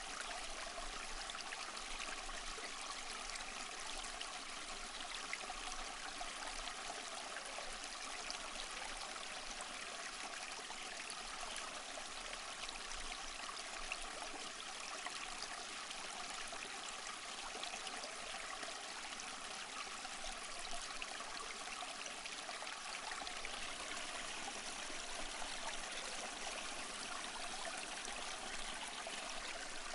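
Small stream flowing over rocks: a steady, even rush of water with fine splashing and little low rumble.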